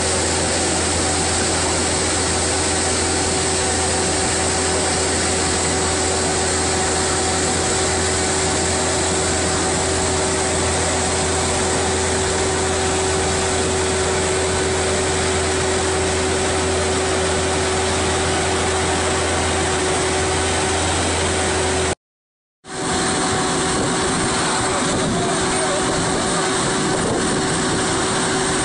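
Vermeer Navigator horizontal directional drilling rig's diesel engine running steadily, with a constant hum over the engine noise. The sound drops out for about half a second near the end, then the engine carries on.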